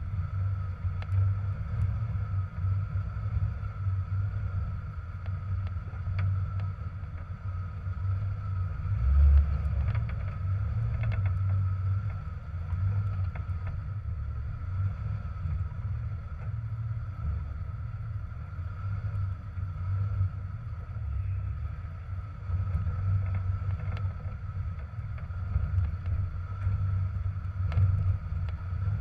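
Jeep TJ engine running at low revs while crawling over rocks, heard through a hood-mounted camera as a low, uneven rumble with a faint steady whine above it. There are occasional knocks.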